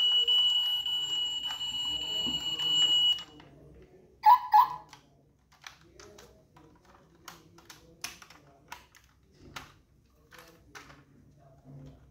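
Diecast Toyota Crown model SUV's built-in sound module playing a steady high electronic tone that cuts off about three seconds in. Then two sharp clicks and a run of small faint clicks as the model's doors are opened and it is handled.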